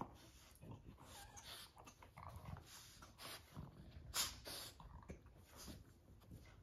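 Two Boston terriers making faint breathing and mouth sounds at close range as one noses and mouths at the other with a rubber toy. Scattered soft clicks and rustles run through it, with one sharper click about four seconds in.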